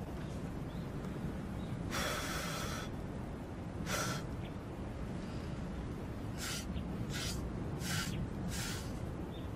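Paper pages of a spiral notebook being turned: one longer rustle about two seconds in, a short one about two seconds later, then four quick page flips under a second apart near the end, over a steady low room hum.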